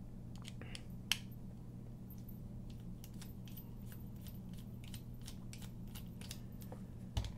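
Small bit driver backing out the screws of a folding knife's G10 handle, making a run of faint, quick clicks, a few a second, with one sharper click about a second in.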